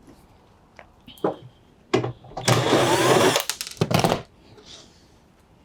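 Cordless drill-driver run in short bursts, with one longer run in the middle, undoing the bolts that hold a washing machine's drain cover.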